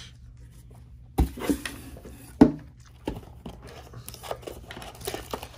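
Hands handling trading cards and a cardboard blaster box: a few sharp clicks and taps, the loudest about two and a half seconds in, followed by rustling and crinkling of packaging.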